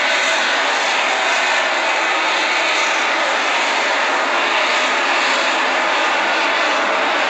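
Engine of an Interstellar Technologies MOMO sounding rocket, heard from the ground as a steady, even rush of noise while the rocket climbs about ten to twenty seconds after liftoff.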